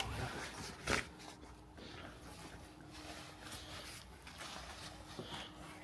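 Quiet handling and movement noises: faint rustling, with one sharp knock about a second in and a faint steady hum underneath.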